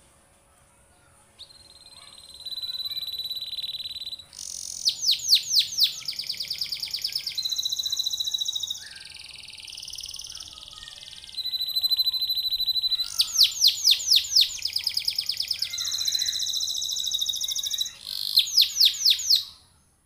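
Domestic canary singing a long, varied song. Held high whistles alternate with fast rolling trills of rapidly repeated notes, with a softer, lower passage in the middle. It starts about a second and a half in and breaks off just before the end.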